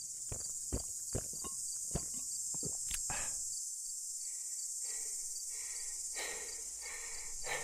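Footsteps walking at about two to three steps a second over a steady high chirring of insects. About three seconds in the crisp steps stop and give way to softer, slower swishing sounds.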